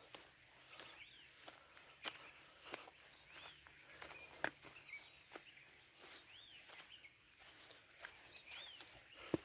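A bird's short chirps, each rising and falling in pitch, about four times, over faint scattered clicks and crunches.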